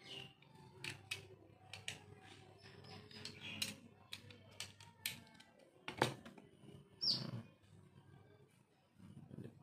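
Irregular clicks and small knocks of a laptop charger's plastic casing being handled and pried open, with a sharp crack about six seconds in and a short high falling squeak just after.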